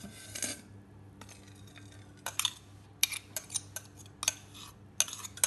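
Stainless steel mixer-grinder jar and bowl clinking and scraping as wet paste is scraped out of the jar into the bowl. From about two seconds in comes a quick, irregular run of sharp metallic taps.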